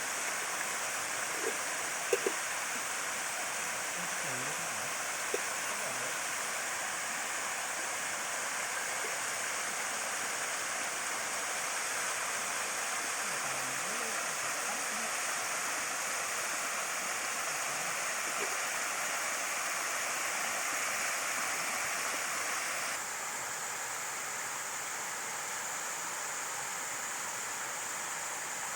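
Rushing water of a river cascade, a steady hiss with two brief knocks about two seconds in. It steps down slightly in level a little after twenty seconds.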